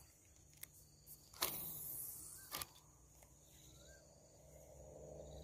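Mostly quiet with a few faint clicks, a brief rush of noise about a second and a half in, and a sharper click a little later, along with a couple of faint short rising chirps.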